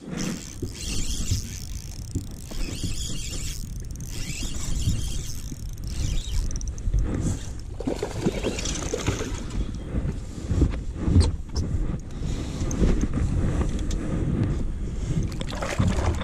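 Wind buffeting the microphone over water noise on a bass boat: an uneven low rumble with hiss above it. A few sharp knocks come about eleven seconds in.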